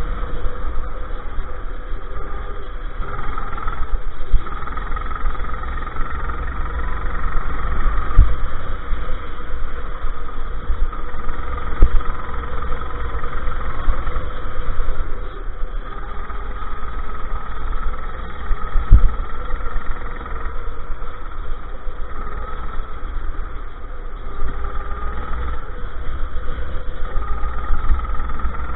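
Go-kart engine running at speed, heard from on board the kart, its level swelling and dropping as it is driven through the corners, over a heavy low rumble of wind and vibration. Three sharp thumps come through about a third of the way in, near the middle and about two-thirds of the way in.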